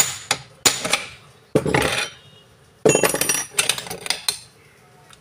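Hand hammer striking a steel punch on the gearbox of a PH 65 demolition hammer: four quick metal blows, then longer metallic clattering and scraping as the gear housing is worked loose, with a few more knocks.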